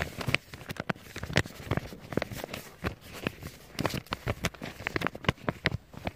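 A run of short, sharp clicks and taps at an uneven pace, several a second.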